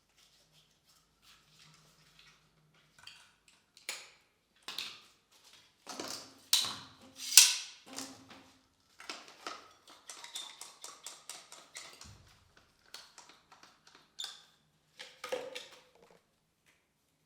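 Irregular knocks, clicks and scrapes of objects being handled, with the loudest cluster about six to eight seconds in.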